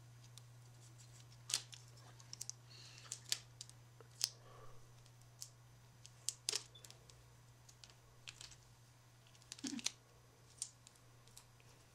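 Scattered, irregular light clicks and taps of fingers, fingernails and a wooden stick on a wooden board and crinkly plastic transfer tape, as a vinyl decal is pressed down and the tape worked off. A faint steady low hum runs underneath.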